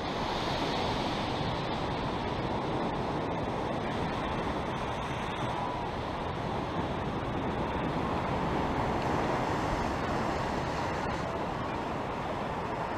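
Steady outdoor wind noise on a GoPro's microphone, a constant even rushing with a low rumble beneath and no distinct events.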